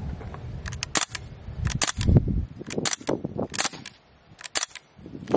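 AR-style BB rifle firing: about a dozen sharp snaps in quick, irregular bursts, starting about a second in, with a low rumble under the first few shots.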